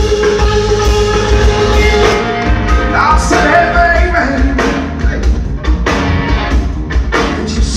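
Live blues-rock trio playing: electric guitar over electric bass and drum kit. The music changes abruptly about two seconds in, cutting to a different song where the guitar bends its notes.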